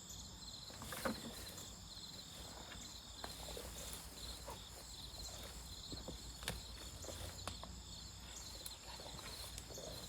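Soil being dug by hand, with a few sharp knocks and small scrapes, over steady high chirring of insects such as crickets.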